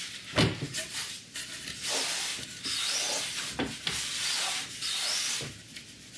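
Plywood crosscut sled pushed back and forth over the Festool table saw top, its runners rubbing in the slots: several scraping strokes with a few short knocks as it stops and turns back. The freshly sanded runners still drag a little.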